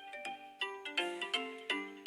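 An LG smartphone's built-in melody tone playing through the phone's speaker: a bright, looping tune of short, quickly struck notes, several a second.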